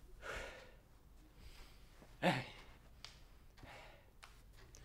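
A man sighs out a breath, then says a short "Эй" about two seconds in, the loudest sound here. A few faint clicks follow near the end.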